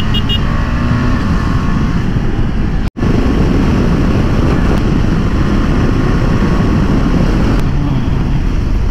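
Motorcycle engine running at road speed under heavy wind rush on the rider's helmet microphone. The sound cuts out for an instant about three seconds in and then carries on.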